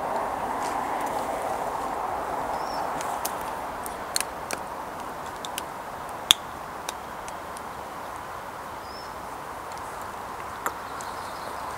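Steady outdoor rushing background with scattered sharp clicks, about seven in all, the loudest about six seconds in, and a few faint, short, high chirps.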